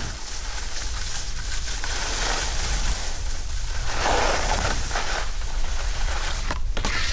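Wind buffeting an action camera's microphone while skiing, with the hiss of skis sliding over snow; the rush swells louder about four seconds in.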